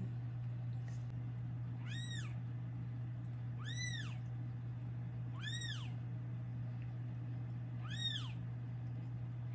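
Newborn kitten crying: five short high-pitched mews about two seconds apart, each rising then falling in pitch, while the mother cat licks it clean just after birth. A steady low hum runs underneath.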